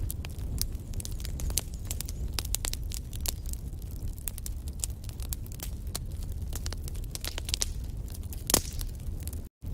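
Wood fire burning in a fireplace, logs crackling with many sharp pops over a steady low rumble of flames. A louder pop comes about eight and a half seconds in, and the sound cuts out completely for a split second near the end.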